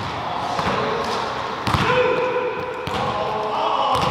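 A basketball bouncing a few times on a hardwood gym floor, the knocks spaced irregularly, with people's voices in the gym.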